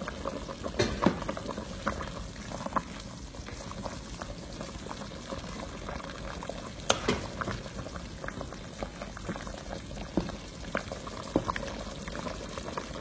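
Okra and meat stew in thick tomato sauce simmering in a pot over medium heat, bubbling with irregular pops of bursting bubbles. The loudest pops come about a second in and again near the middle.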